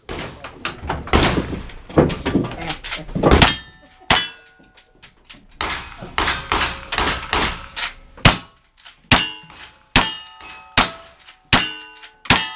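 A run of gunshots fired in quick succession, each followed by the ringing clang of a steel target being hit. In the second half the shots come evenly, roughly one every two-thirds of a second.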